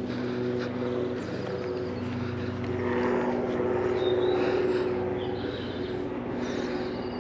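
Small quadcopter camera drone's propellers buzzing steadily at a few fixed pitches.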